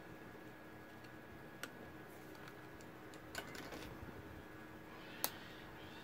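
A few faint clicks and taps as fingers handle a grey ribbon cable at a TV power board's plastic connector, the sharpest click about five seconds in, over a faint steady hum.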